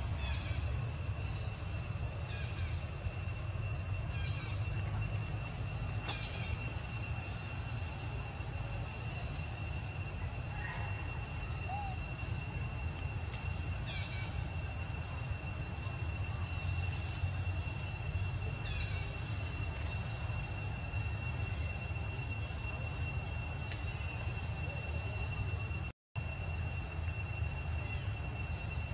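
Outdoor ambience: a steady high insect drone held on two pitches, with short bird chirps scattered throughout, over a low steady rumble. The sound cuts out for a moment about 26 seconds in.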